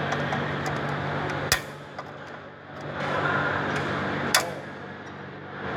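Two sharp metallic clicks, about three seconds apart, from snap ring pliers working a snap ring off the input shaft bearing of an Eaton transmission, over a steady background hum.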